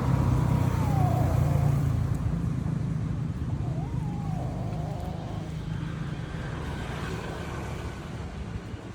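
A steady low hum like a running motor, fading slowly, with two drawn-out calls that rise, hold and fall, about four seconds apart.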